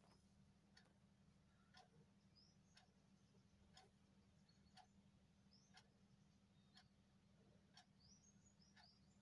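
Near silence with a clock ticking once a second, a low steady hum, and faint high chirps between the ticks.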